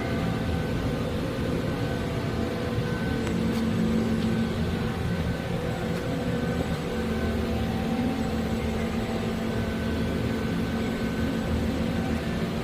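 Doosan Puma MX2600ST CNC mill-turn lathe running: a steady machine hum with several steady tones layered over it, one low tone a little stronger through the middle.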